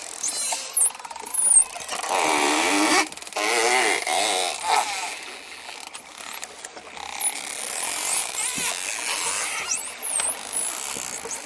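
Dolphins calling: high whistles that sweep up and down several times, and a stretch of fast, wavering buzzy squawks with a few clicks in the middle.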